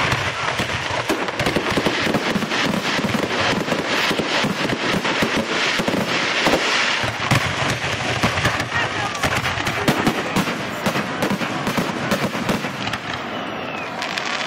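Fireworks display going off in a dense, continuous barrage of rapid crackling reports, easing slightly near the end.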